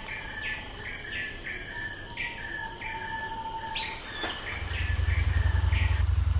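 Tropical forest insects and birds: steady high insect drones with a short call repeating about twice a second, and one loud rising call about four seconds in. From about four and a half seconds a low, pulsing boat engine takes over, and the forest sounds stop shortly after.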